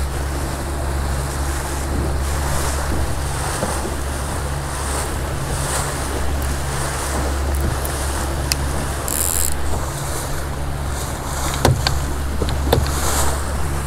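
Outboard motor running steadily at trolling speed, a low even hum, with water rushing past the hull and wind on the microphone. A few sharp clicks come near the end.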